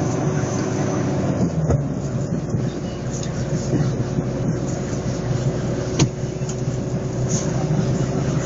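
Vehicle engine running steadily with road noise, heard from on board while driving. Two sharp knocks, one about two seconds in and one about six seconds in.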